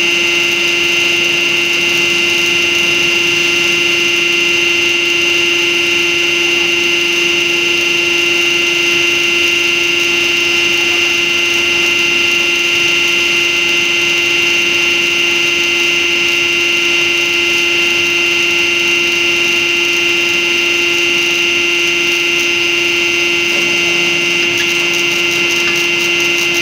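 Hydraulic test bench power unit running steadily under load, a constant high-pitched pump whine with several fixed tones, as it strokes a long telescopic hydraulic cylinder.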